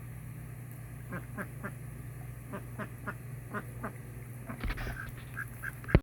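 Repeated short bird calls in quick runs of two or three, with a steady low hum underneath; a sharp knock comes right at the end.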